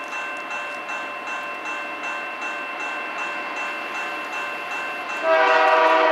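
A bell rings steadily at about three strokes a second as a freight train approaches. About five seconds in, the leading GE AC4400CW diesel locomotive's air horn sounds, a loud chord of several notes blown for a grade crossing at the whistle post.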